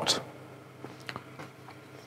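Quiet room tone with a few faint light clicks and taps about a second in, from a thin wooden test piece being handled.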